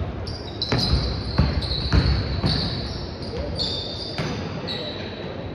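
A basketball bouncing on a gym court in irregular thuds during play, with sneakers squeaking on the floor.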